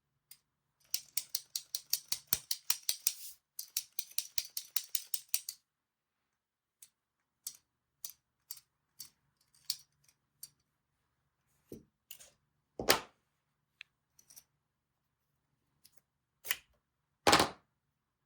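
Two fast runs of small sharp clicks, about five or six a second, then single clicks every half second or so, and two louder knocks near the end.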